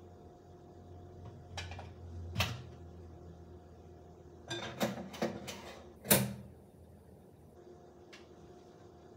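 Kitchen clean-up clatter: a few sharp knocks and clinks of dishes and utensils being handled, in a quick cluster about five to six seconds in, over a faint steady hum.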